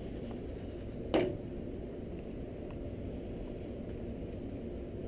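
Gas stove burner running with a steady low rush under an aluminium llanera of sugar being caramelized. About a second in, one sharp metal clank as the mold is moved on the burner grate with tongs.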